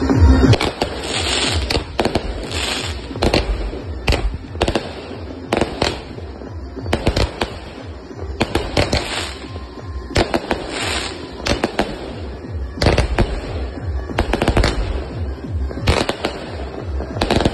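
Fireworks going off: a long, irregular string of sharp bangs, some followed by a hissing crackle.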